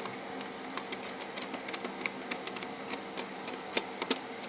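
Irregular light clicks and taps of a screwdriver working the screws on a PlayStation 3's board and metal frame, several a second at uneven spacing.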